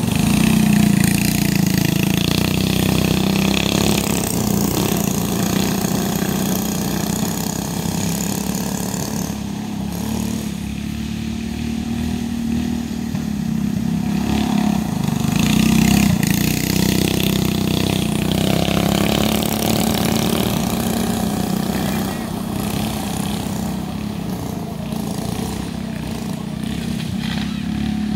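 Go-kart engine running as the kart laps a dirt track, its note rising and falling as the kart speeds up, slows through the turns and moves nearer and farther away.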